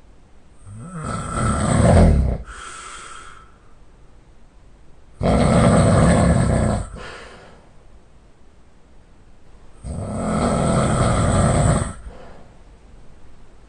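A man snoring heavily in deep sleep: three loud, rasping snores about four to five seconds apart, with quieter breathing between them.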